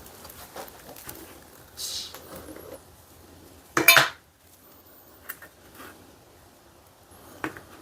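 Small knocks and handling noises of containers and tools on a workbench, with one loud ringing clink about four seconds in.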